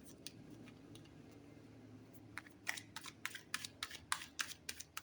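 Tarot cards being handled, a run of crisp card snaps starting about halfway through at roughly three or four a second, over the low steady hum of a washing machine running.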